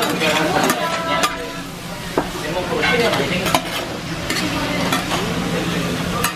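Dakgalbi (spicy chicken, cabbage and rice cakes) sizzling on a round griddle pan while a flat spatula stirs and tosses it, with a steady frying hiss and sharp scrapes and clicks of the spatula against the pan every second or so.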